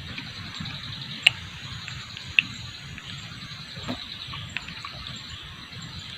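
Evening forest ambience: a steady high drone of insects, broken by a few sharp clicks and ticks, the two loudest about a second and two and a half seconds in.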